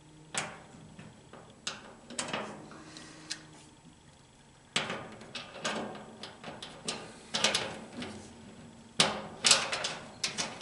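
Metal fittings on rubber hoses clicking and knocking as the hoses are handled and lined up at a firewall bulkhead: scattered clicks and taps, busier about five seconds in and again near the end.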